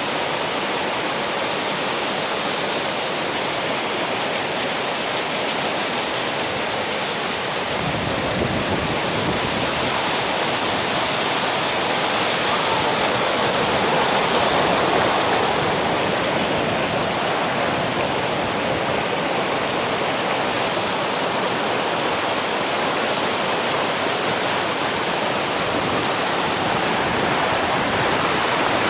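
Waterfall: falling water rushing steadily as a dense, even noise, slightly louder around the middle.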